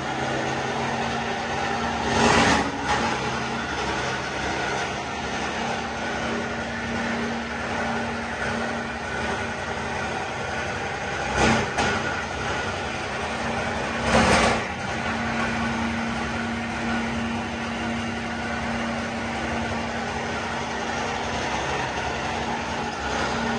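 Steady hum and noise of factory machinery running, with three brief louder swells about two, eleven and fourteen seconds in.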